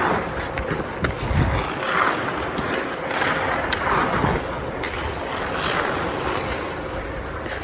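Hockey skate blades carving and scraping on ice in repeated swishing strokes as a skater strides and makes Mohawk turns, with a low thump about a second and a half in.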